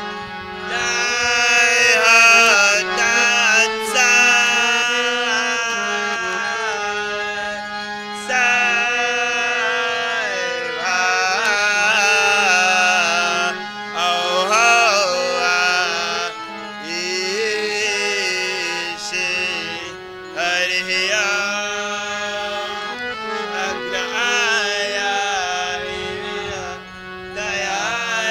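Indian devotional music: a melody that slides and bends in pitch, phrased with short breaks, over a steady held drone.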